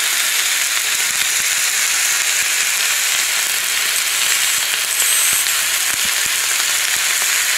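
Hot metal ball sizzling steadily among water beads, the water in the beads boiling off where they touch it, with a few faint pops.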